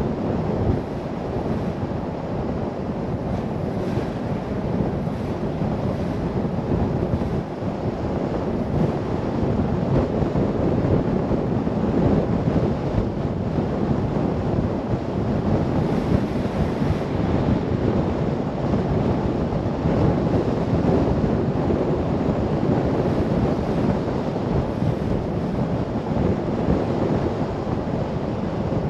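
Steady noise of a car on the move: tyre rumble on the road and wind rushing past, with no distinct events.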